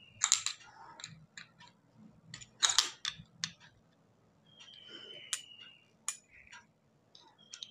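Screwdriver loosening a screw on a sewing machine's shuttle area: sharp metal clicks and scrapes, two loud ones within the first three seconds. Past the middle comes a high, slightly falling squeak of about a second.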